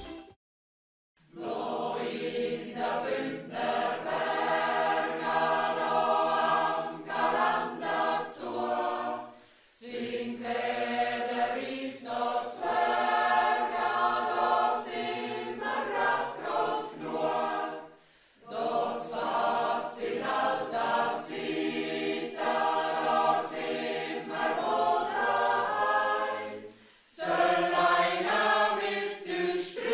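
Mixed church choir of men and women singing together in sustained phrases of about eight seconds, each followed by a short pause. It begins after a moment of silence.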